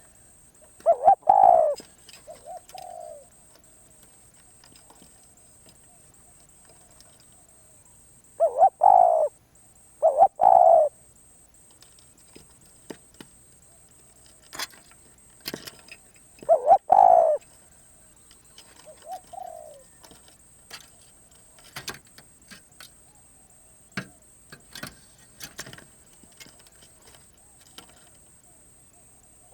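Spotted dove cooing: four loud coo phrases, one about a second in and the rest spread over the first two-thirds, with fainter coos between them.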